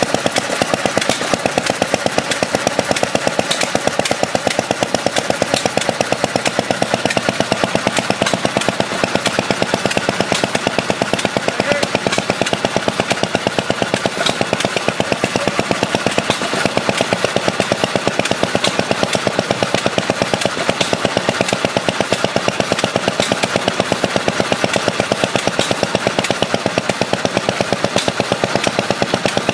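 Rider-Ericsson hot-air pumping engine running steadily, its mechanism and pump beating out a fast, even, unbroken rhythmic clatter.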